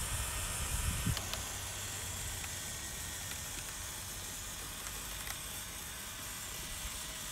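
RC off-road truck's tyres churning slowly through wet mud and slush, a steady wet hiss, with a low rumble that fades out about a second in.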